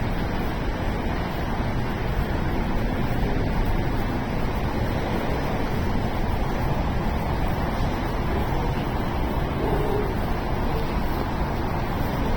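Harsh noise: a dense, unchanging wall of static-like noise with no pitch or rhythm.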